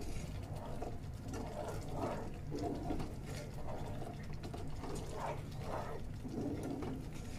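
A wooden spatula stirring semolina halwa through its sugar-water syrup in a pan, with wet swishing and scraping in uneven strokes over a steady low hum.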